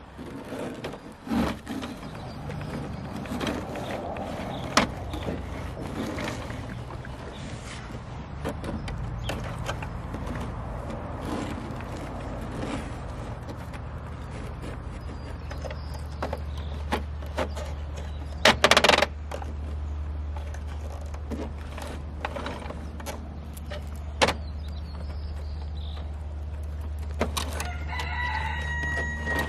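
Plastic toy truck handled on a wooden deck: scattered clicks, taps and scraping, with one short loud rustle about two-thirds of the way through. A steady low hum sets in about halfway, and a rooster crows near the end.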